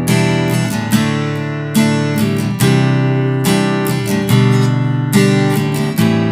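HEX STING F300CE G acoustic-electric guitar, with a solid Sitka spruce top and sapele back and sides, strumming a run of changing chords. Each strum rings on until the next one, and a new one comes roughly every second.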